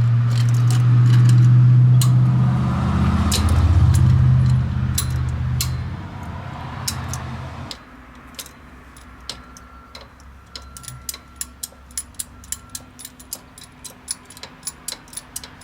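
A steady low hum for about the first eight seconds, which then stops. After it comes a hand ratchet clicking in quick irregular runs of strokes, several clicks a second, as bolts are worked loose on the power steering pump.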